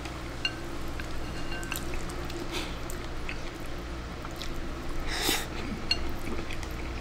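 Eating from a rice bowl with chopsticks: small clinks of the chopsticks against the ceramic bowl and wet mouth sounds, with a short louder noise about five seconds in, over a steady low room hum.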